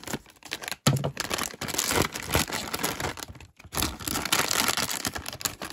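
Plastic packaging crinkling and rustling as it is handled, in three stretches with brief pauses between.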